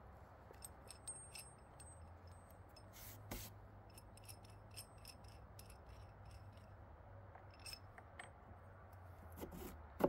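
Faint scraping and small metal clicks as a carriage bolt is worked through a drilled hole in a pressure-treated wooden post.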